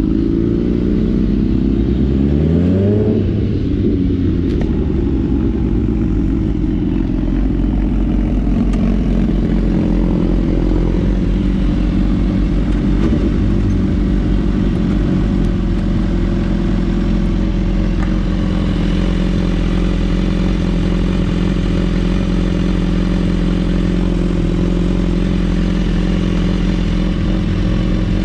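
Motorcycle engine under way, rising in pitch as it accelerates over the first three seconds, shifting gear, then running steadily at cruising speed.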